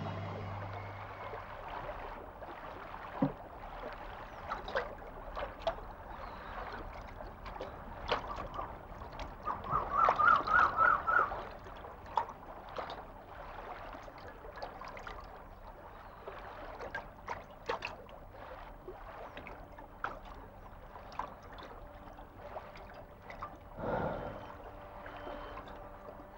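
Water splashing and lapping at a lake's edge as it is scooped by hand, with many small sharp splashes. A short, high warbling trill comes about ten seconds in and is the loudest sound.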